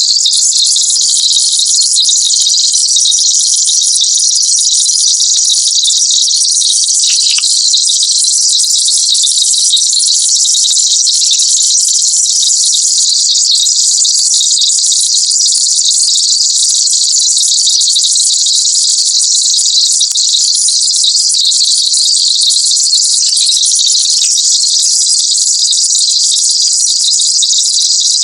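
Electronic pest-repellent sound effect: a loud, steady, shrill band of many high tones held without change, sold as a sound to repel rodents, mosquitoes and insects.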